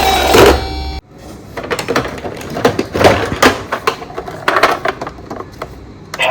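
Irregular clicks, taps and knocks of plastic toy vehicles being handled and set down, after a loud electronic toy sound cuts off abruptly about a second in.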